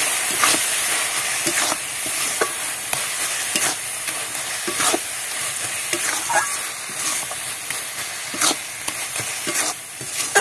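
Spatula stirring and scraping a thick grated-carrot, milk and sugar mixture in a metal wok (kadai), with irregular scrapes and knocks against the pan over a steady sizzle as the mixture cooks down.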